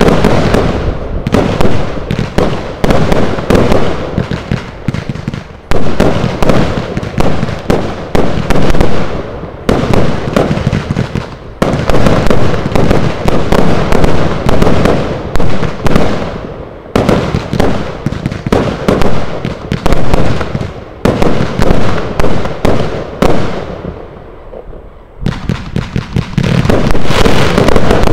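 A fireworks finale firing in rapid, dense volleys of shots and bursting bangs. It is loud and almost continuous, easing briefly every few seconds before the next volley.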